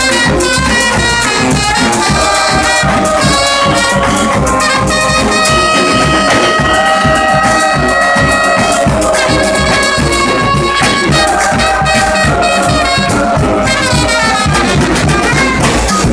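Brass band playing loudly: trumpets and trombones over a steady drumbeat, holding long chords from about five to nine seconds in.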